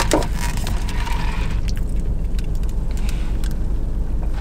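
Steady low rumble inside a parked car's cabin, most likely its engine idling, with a few faint clicks and rustles from a drink cup and food container being handled.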